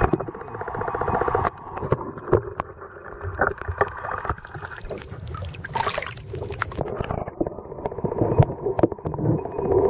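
Water sloshing and gurgling around a boat, with scattered knocks and a brief hissing rush about six seconds in.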